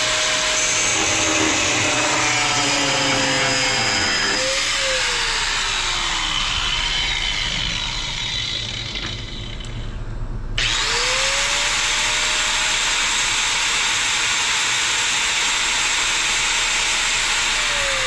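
DeWalt angle grinder with a cut-off wheel cutting steel threaded rod. The motor slows partway through and cuts out about ten seconds in. It starts again half a second later with a rising whine for a second cut, and winds down again near the end.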